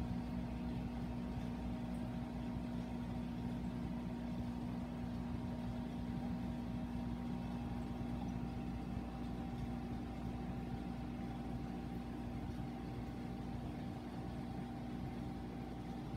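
Steady electric hum of saltwater aquarium pumps running.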